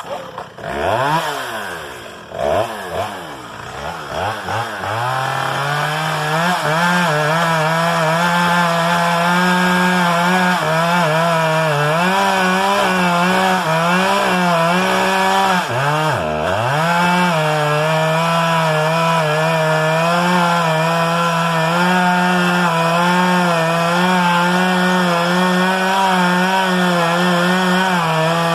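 Chainsaw starting, revving up and down for a few seconds, then held at high speed in a long steady run, its pitch dropping briefly about halfway through, as when cutting into the trunk of an American elm.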